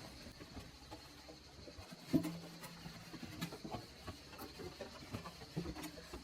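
Mop wiping chlorine gel detergent over the inside of a washing machine drum, with small scattered rubbing and clicking noises and a sharper knock about two seconds in.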